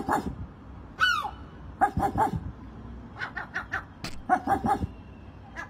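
A pet seagull giving groups of short, harsh, bark-like calls, a few of them falling in pitch.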